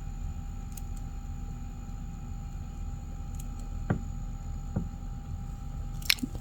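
Sony TPS-L2 Walkman's cassette mechanism running out of its case: a steady whir of the small motor driving the belt and capstan, with a few light clicks.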